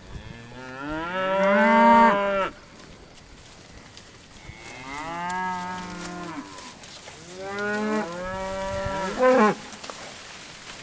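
South Poll cattle mooing: three long moos, each about two seconds, the first the loudest and the second fainter.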